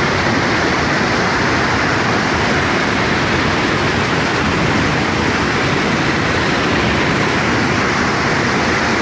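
Rain-swollen river rushing fast and steady, a loud, even roar of flood water.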